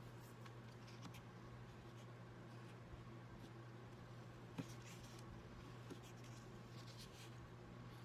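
A fine-tip pen drawing lines on watercolour paper: faint scratching strokes in a few short spells, with a single light tap about halfway through.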